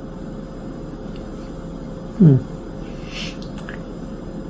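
A single short vocal sound falling in pitch, about two seconds in, over a steady background hum, followed by a brief hiss and a couple of light clicks.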